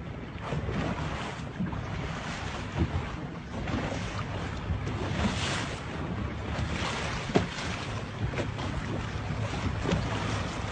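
A boat's motor running steadily at sea, with wind buffeting the microphone and the wash of choppy water. Twice there is a sharp knock.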